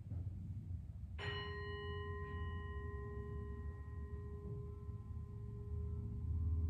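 A bell struck once about a second in, its clear tone ringing on and slowly fading, over a low steady hum.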